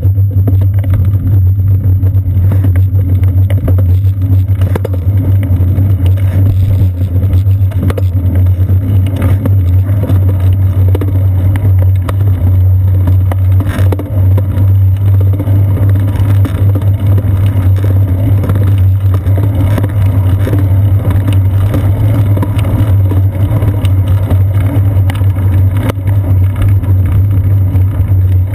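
Steady wind and road rumble from a moving bicycle, picked up by a seat-post-mounted GoPro Hero 2 camera, with a constant low hum and frequent small rattles and knocks from the road surface shaking the mount.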